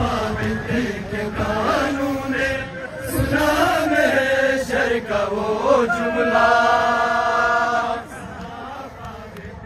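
A group of men chanting a noha, a Shia mourning lament, with a long held note from about six to eight seconds in. After that the voices fall much quieter.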